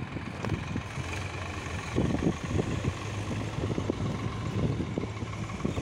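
Powertrac 39 hp tractor's diesel engine running steadily, with uneven low rumbles over it.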